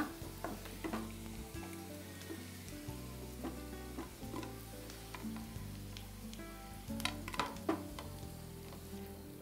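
Well-fried potato cubes sizzling in oil in a non-stick frying pan as a wooden spatula stirs and turns them, with a few sharp clicks of the spatula against the pan about seven seconds in.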